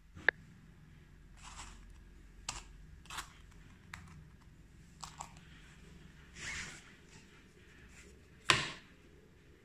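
Handling sounds of small parts and a stretched canvas against a wooden picture frame on a table: scattered light clicks and brief rustles, with a sharp click just after the start and a louder knock about eight and a half seconds in.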